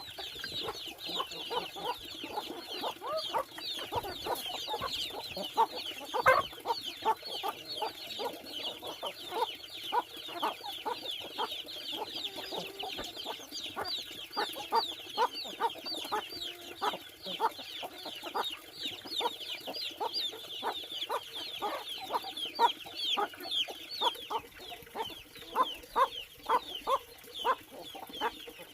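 Domestic chickens clucking and peeping continuously, many short calls overlapping: a flock with high, quickly falling chirps over lower clucks.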